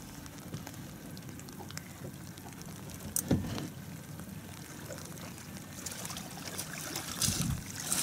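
Water lapping and trickling against an aluminium boat hull, with scattered small clicks and one sharp knock a little over three seconds in.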